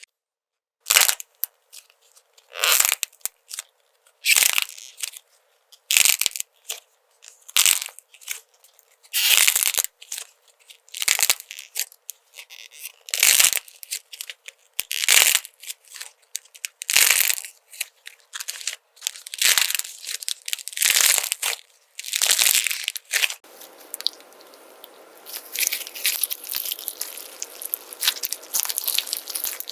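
Slime being squeezed and pressed, a crisp crackling squish about every couple of seconds. About 23 seconds in it changes to a denser, continuous crackling rub.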